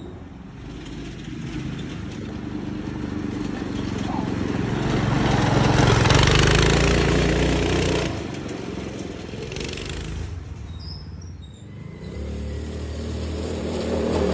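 Predator 212 single-cylinder four-stroke engine on a go-kart running at high revs with its governor bypassed by a zip tie. The sound swells to its loudest about six seconds in as the kart passes close, drops suddenly around eight seconds, and builds again near the end as the kart comes back.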